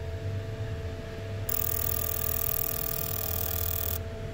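Number 6 fuel injector of a 3.1L V6 being pulsed during an injector balance test: a steady hiss starts about a second and a half in and cuts off suddenly after about two and a half seconds, over a low hum, as rail pressure drops from about 40 to 35 psi.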